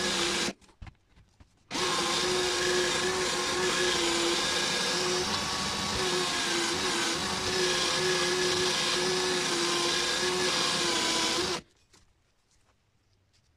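Cordless drill spinning a foam polishing pad against a cast-aluminium hatchet head, a steady motor tone over the rush of the pad on the metal. It cuts out briefly about half a second in, resumes a second later, and stops abruptly near the end.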